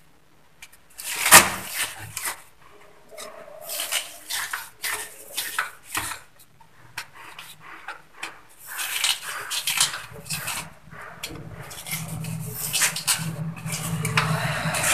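Hand screwdriver tightening a screw into a plastic wall fitting: irregular small clicks, ticks and scrapes of the driver tip and screw, with one sharp click about a second and a half in. From about ten seconds in a low steady hum runs underneath.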